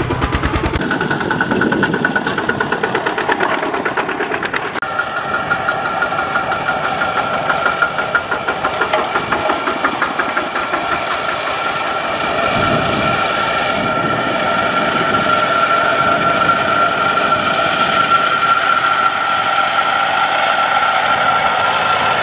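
Single-cylinder diesel engines of two-wheel walking tractors running under load as they pull rice-laden trailers, with a steady whine. The sound changes abruptly about five seconds in and grows a little louder through the second half as one tractor draws near.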